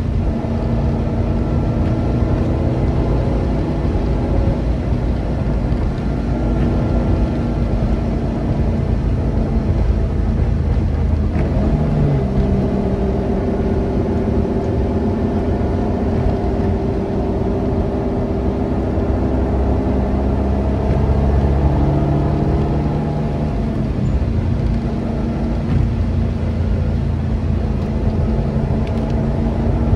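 Subaru Impreza 2.5RS's flat-four engine running under way, with road and tyre rumble underneath. The engine note shifts in pitch about twelve seconds in and again near the twenty-four-second mark as the car changes speed.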